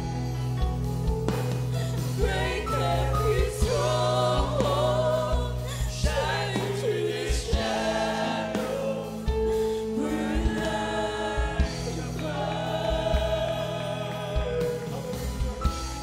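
Mixed youth choir singing a gospel worship song over sustained low instrumental accompaniment, with occasional percussive hits.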